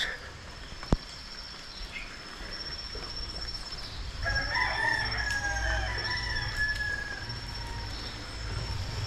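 A rooster crowing once, a long drawn-out crow starting about four seconds in, over a steady high-pitched tone. There is a single sharp click about a second in.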